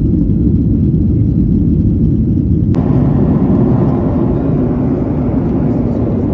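Steady jet airliner cabin noise inside a Southwest Boeing 737 in flight: a loud, deep rumble of engines and rushing air. About three seconds in it changes abruptly to a slightly hissier version of the same noise.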